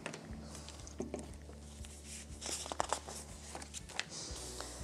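Faint handling sounds of paper and small craft items: a few light clicks and taps as items are set down on a wooden table, and a soft rustle as a paper booklet page is turned. A low steady hum runs underneath.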